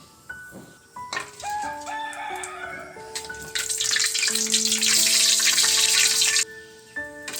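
Tap water running into a sink for about three seconds, then shut off suddenly, over background music with steady stepping notes.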